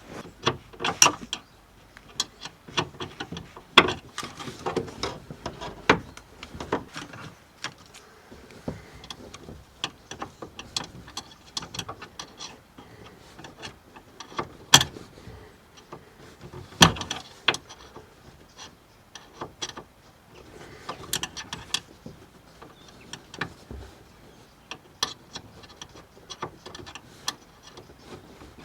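Flathead screwdriver levering at a tailgate gas strut's end fitting: an irregular run of sharp metal clicks, scrapes and knocks, with a few louder knocks among them.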